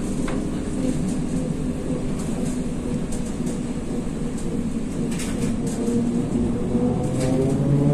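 ZiU-682G-016.05 trolleybus in motion, heard from inside the cabin: the electric traction motor's whine over road and tyre noise. The whine holds steady at first and starts rising in pitch near the end as the trolleybus picks up speed.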